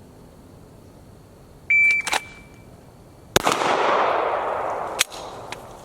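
Shot timer gives one short high beep, and about a second and two-thirds later a single handgun shot is fired from the draw, its report fading out over more than a second. A short click follows the beep, and another sharp click comes near the end.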